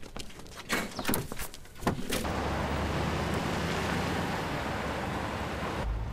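A few knocks and thumps, then an old jeep's engine running steadily as it drives along a dirt road. Near the end the sound turns to a deeper rumble heard from inside the cab.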